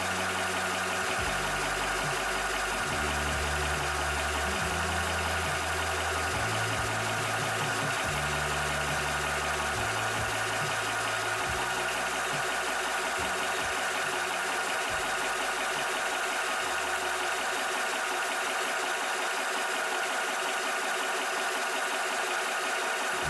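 Cobra high-pressure PCP air compressor running steadily while pumping, a constant mechanical hum with a steady whine.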